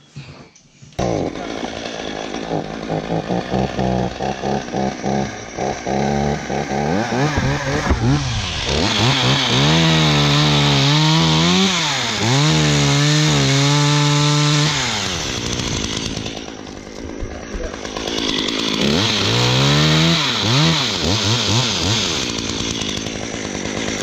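Two-stroke chainsaw running, revved up and down over and over, then held at full throttle while cutting through a tree trunk; another round of revving comes near the end.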